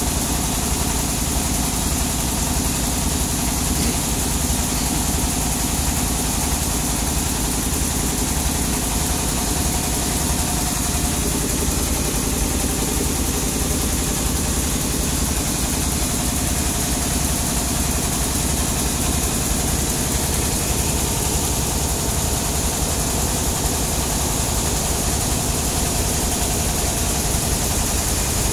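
Sawmill machinery running steadily: an engine with a fast, even low throb and a constant hum, unchanging throughout.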